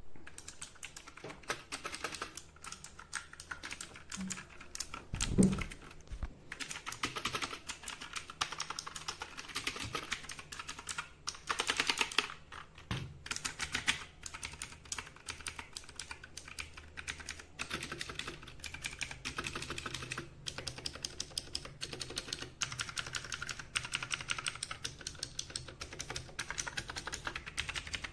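Fast, continuous typing on a Gigaware Leaven K620 61-key mechanical keyboard, a dense run of key clicks, with one louder low thud about five seconds in.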